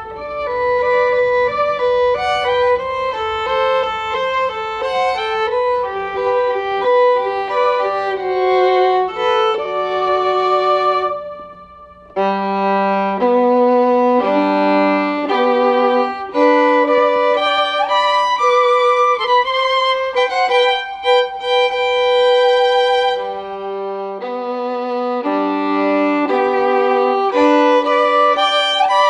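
Background music: a violin playing a melody of held notes over accompaniment, briefly dropping away about twelve seconds in before resuming.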